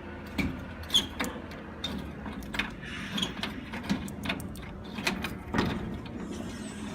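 Vending machine door lock and handle being worked with a key: a series of irregular clicks and knocks, the loudest about a second in and again near the end, over a steady hum.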